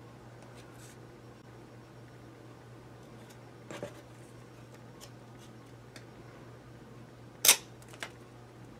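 A knife cutting through a feather quill's shaft: small scrapes and cracks, then one sharp snap about seven and a half seconds in as the barrel is cut through, with a smaller click just after. A steady low hum runs underneath.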